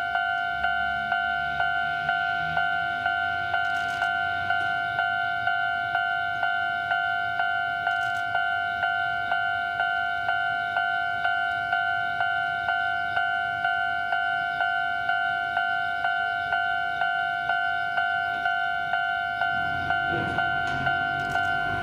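Railway level-crossing warning bell ringing steadily, about two strikes a second, each strike a ringing two-note electronic tone. A train's low running rumble sits under it and grows again near the end as another train approaches.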